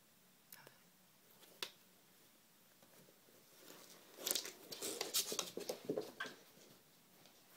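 Kittens play-fighting on a wooden floor: a few light taps, then a couple of seconds of scuffling and scrabbling paws and claws starting about four seconds in.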